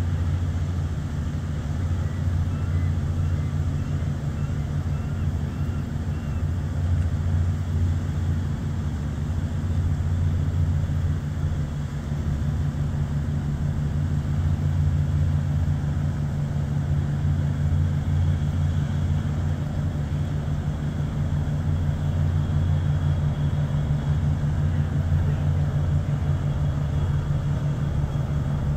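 Landing craft's engines running with a steady low drone as the vessel passes close by, growing slightly louder in the second half.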